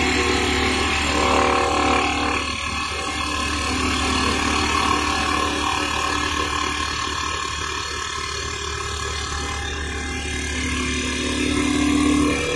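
CNC wood lathe running and cutting a spinning wood blank into a turned spindle. It gives a steady motor hum under a rough cutting noise, with a tone that comes and goes and shifts in pitch as the cutter works along the piece.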